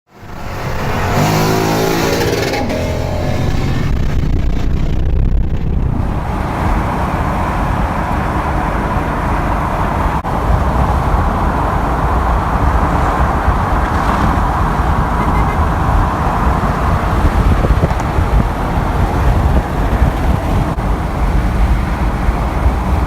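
Car engine and exhaust accelerating hard, the pitch climbing over the first couple of seconds, then a long, steady rush of engine, exhaust and road noise.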